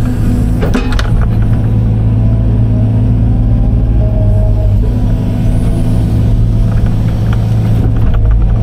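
Case excavator's diesel engine running steadily under digging load, heard from inside the cab, with a few sharp knocks about a second in and a brief higher whine around four seconds in as the loaded bucket swings.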